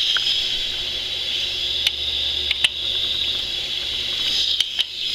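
Steady hiss of compressed air escaping from a BMW R90/6 airhead cylinder pressurised to about 100 psi for a leak-down test, with a few light clicks. The leakage is very minimal, under 10%, so the rings and valves are sound.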